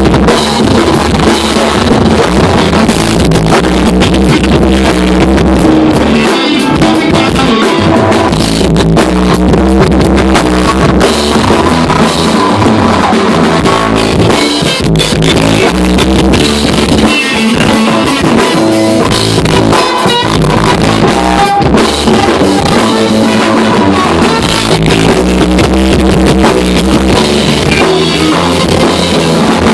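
A live rock band playing loudly and without a break: electric guitars and a drum kit, with a trombone in the line-up.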